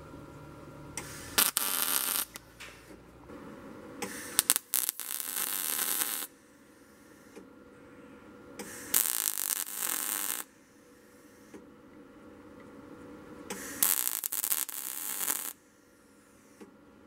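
Wire-feed (MIG) welding arc laying four separate tack welds, each a crackling sizzle of one to two seconds, tacking the middles of an expanded steel mesh grate to its steel frame.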